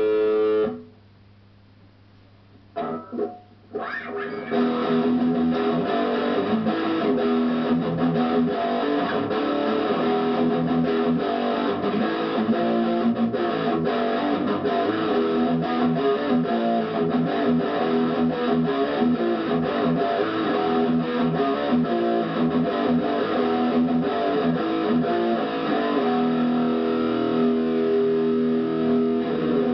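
HK Wolf superstrat electric guitar being played. A ringing chord is cut short under a second in, a couple of short notes follow after a pause, then continuous playing of notes and chords.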